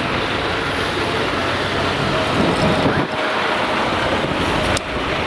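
Steady wind noise on the microphone, mixed with the hum of street traffic.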